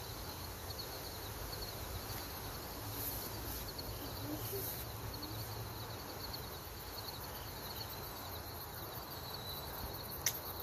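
Insects chirping steadily in outdoor ambience, with a single sharp snip of scissors cutting through a rabbit's leg near the end.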